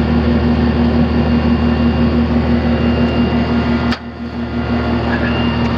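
Steady hum of an air-conditioning condensing unit running, with a low, even drone and a faint pulsing tone in it. About four seconds in there is a single sharp click.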